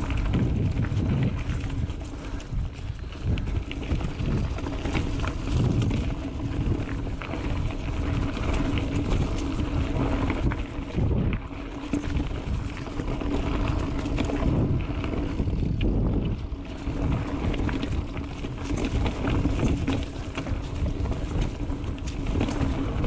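Mountain bike riding on dirt singletrack: wind rushing over the microphone over the rumble of tyres on the trail, with frequent short knocks and rattles from the bike over bumps.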